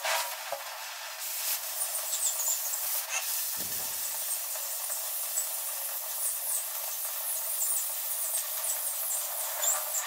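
Oxy-fuel cutting torch cutting through plate: a steady hiss of the gas jet, with light crackling from the sparks and molten slag blowing out of the cut.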